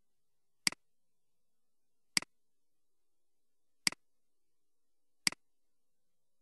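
Four computer mouse button clicks, about a second and a half apart, each a sharp click with a softer one right after it.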